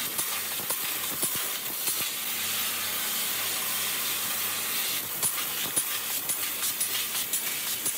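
Han's Laser sheet-metal laser cutting machine at work: a steady hiss with many irregular sharp clicks, which thin out for a few seconds mid-way. The footage is sped up to double speed.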